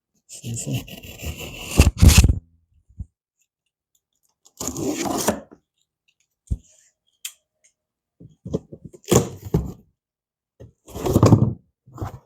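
A cardboard shipping box being cut open with a knife and its packing handled, heard as bursts of scraping and tearing with a few sharp clicks. The longest and loudest burst comes in the first two seconds, then shorter ones follow every few seconds.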